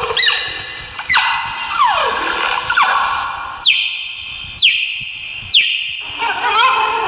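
Cheetah chirping: a series of short, high-pitched calls, each sliding sharply down in pitch, about one a second, turning into a wavering, warbling call near the end.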